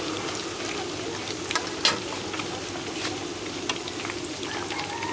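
Skewered sausages, fish cakes and beef balls deep-frying in hot oil: a steady sizzle, with a few sharp clicks.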